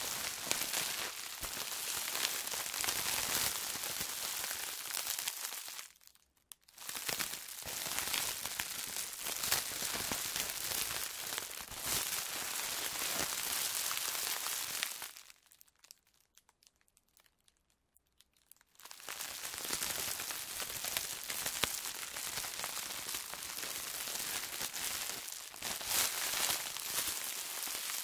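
Plastic bag being handled and moved, crinkling and rustling in three long stretches, with a short break about six seconds in and a few seconds of quiet in the middle.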